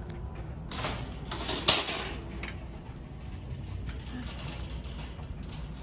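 Metal shopping cart clattering and clanking as it is pulled out of a row of nested carts, with the loudest clank about two seconds in, then rolling along with a lighter rattle.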